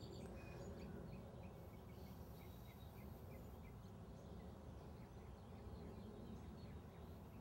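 Faint outdoor ambience: a low steady rumble with a small bird chirping, a run of short evenly spaced chirps, about three a second, through the first few seconds.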